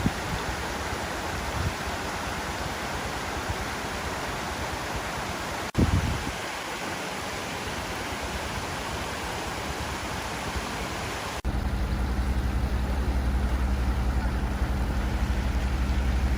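Waterfall, water rushing as a steady hiss, broken by abrupt cuts about six and eleven seconds in. After the second cut it is louder, with a steady low hum under it for the last five seconds.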